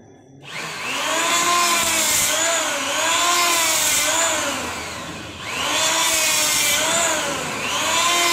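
Kyuho K-282 electric hand planer starting up about half a second in and shaving a block of wood, its motor whine sagging and recovering in pitch about once a second as the blades bite, easing briefly about five seconds in. The blades cut without screeching, which is taken as a sign that the stock blades are very sharp.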